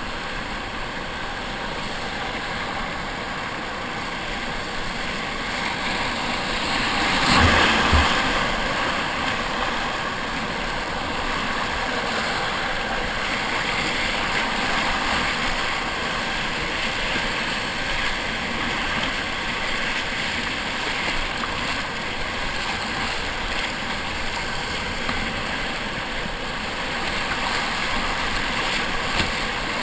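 Whitewater rapid rushing and churning around a kayak. About seven seconds in the water surges louder, with two short low thumps as a splash hits the boat.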